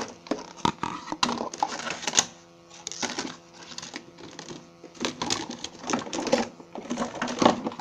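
Irregular clicks, knocks and clatter of bowls and kitchenware being handled and rummaged through, with a quieter stretch in the middle.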